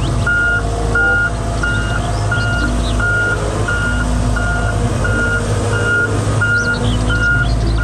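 Volvo wheeled excavator's diesel engine running steadily while its warning alarm beeps evenly, about three beeps every two seconds; birds chirp faintly now and then.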